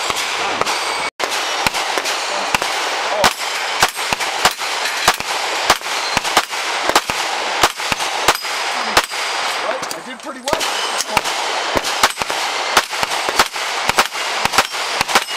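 Rapid pistol shots from an SJC Glock 17 open-division race pistol, two to three a second, with steel targets ringing from the hits. The firing breaks off briefly about ten seconds in, then picks up again.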